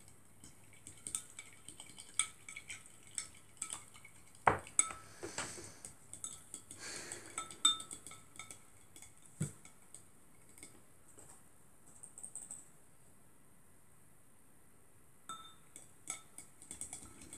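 A plastic spoon stirring a runny PVA glue and contact lens solution mix in a glass jar, with irregular faint taps and clinks against the glass. There are louder knocks about four and a half and nine and a half seconds in, and the stirring pauses for a couple of seconds near the end.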